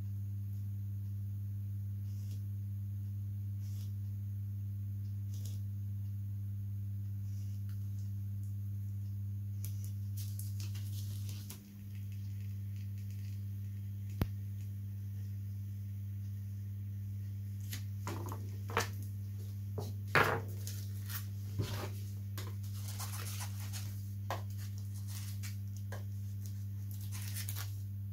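Steady low electrical hum with a brief dip near the middle. In the second half, scattered crinkling and light taps of plastic covering film being handled and pressed onto the rotor blade.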